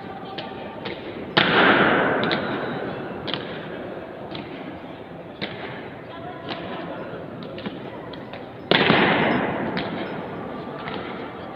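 Ceremonial guards' boots stamping and marching on a marble floor under a high stone dome. Two loud stamps about seven seconds apart each ring out in a long echo, with lighter footfalls and heel clicks between them.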